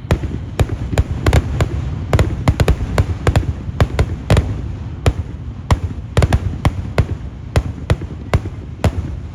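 Kerala daytime fireworks (vedikettu): a rapid, irregular string of loud firecracker bangs, about three or four a second, with no let-up.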